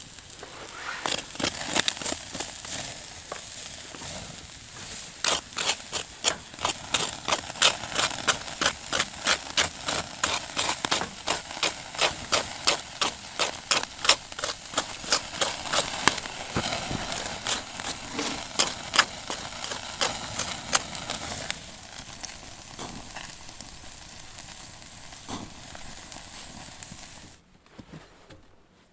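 A rapid series of sharp knocks or strikes, about two to three a second, over a crackling background; the strikes thin out after about twenty seconds and the sound drops away near the end.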